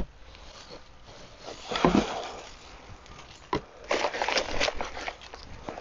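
Dry leaves and half-rotted compost rustling and crunching as they are dug through and tossed out of a wooden compost bin, in irregular bursts with a sharp knock about three and a half seconds in.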